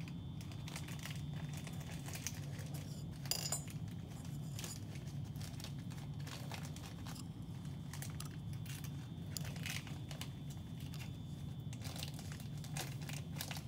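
Quiet steady low hum with a faint high tone over it, broken by scattered small clicks and rustles every second or few: light handling noise, with no voice.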